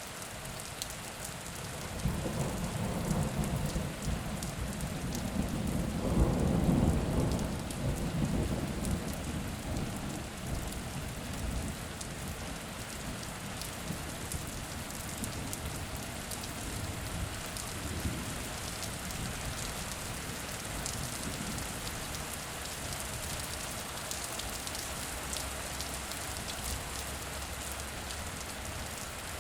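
Steady rain falling, with a roll of thunder that starts a couple of seconds in, swells to its loudest a few seconds later, then slowly rumbles away.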